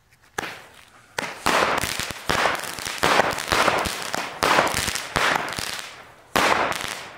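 Small 7-shot consumer fireworks cake firing: a series of sharp shots roughly a second apart, each with a hissing tail as it bursts overhead.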